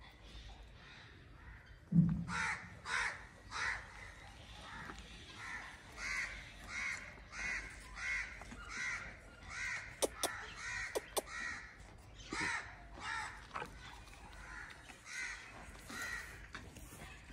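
A crow cawing over and over, short calls about one and a half a second, with a single thump about two seconds in and a few sharp clicks around the middle.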